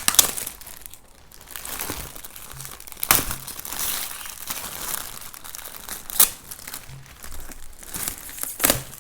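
Gift wrapping paper crinkling and being torn off a box, with several sharp rips through the rustling.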